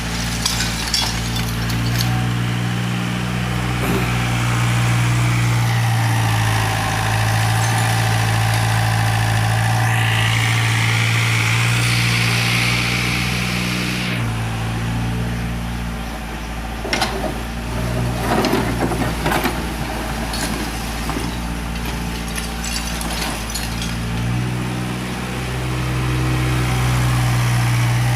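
Doosan 55W excavator's diesel engine running steadily, its pitch and load shifting as the hydraulics work, with a whine that swells and falls off partway through. About two-thirds through come a run of clattering knocks as the bucket works in broken brick and rubble.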